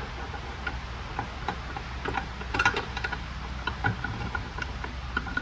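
Steel parts of an Eaton Fuller transmission shift top clicking and clinking as they are handled and fitted together, with a quick cluster of clicks about two and a half seconds in. A steady low hum runs underneath.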